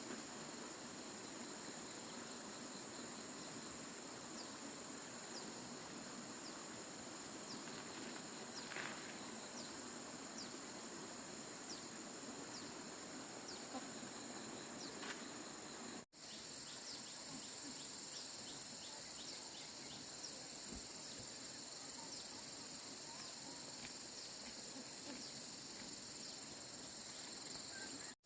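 Insects trilling steadily in a faint, high-pitched chorus, with short chirps over it. The sound cuts out for an instant about sixteen seconds in.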